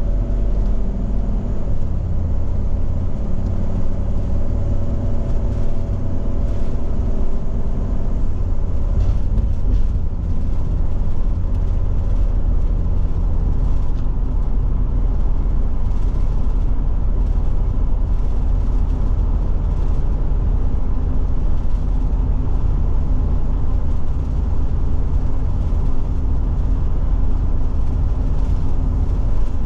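Motorhome driving on the highway, heard from inside the cab: a steady low rumble of engine and road noise. An engine whine climbs slightly over the first several seconds as it picks up speed after the turn, then settles into the steady drone.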